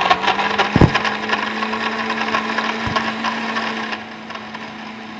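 Countertop blender crushing ice with syrup and water into a slush: a loud grinding rattle over a steady motor hum, with two heavy knocks of ice chunks against the jar. About four seconds in the grinding eases as the ice breaks down, and the motor keeps running.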